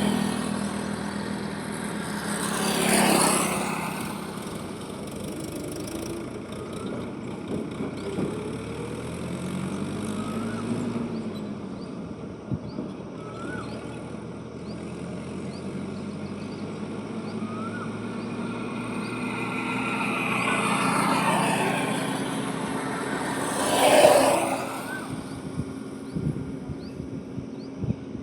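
Highway traffic: vehicles pass close by about three seconds in and again, loudest, near the end, with a broader swell of passing traffic shortly before, over a steady hum of engines. Faint short rising chirps come every second or two through the middle.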